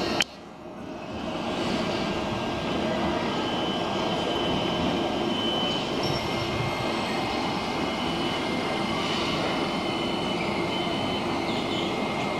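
Auckland AM class electric multiple-unit train running into the station. Its steady rumble builds over the first couple of seconds and then holds, with thin high whines running over it.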